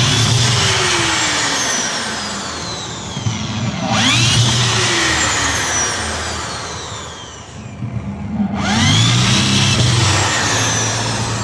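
Cordless drill boring holes in a metal jalousie window rail, run three times in a row. Each run starts with a quick rise in pitch that then slides slowly down as the bit bites into the metal. There is a short pause before the third run.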